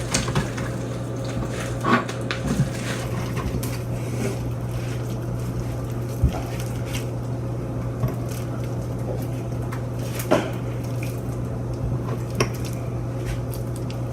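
Slime being mixed by hand in a bowl: soft squishing with a few separate clicks and knocks of the container and utensils, over a steady low hum.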